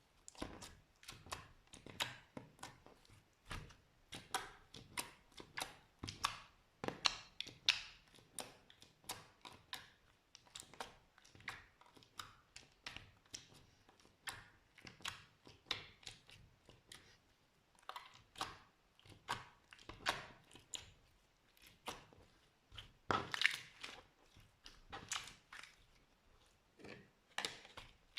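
Slime being squished, giving an irregular run of short sticky clicks and pops, several a second.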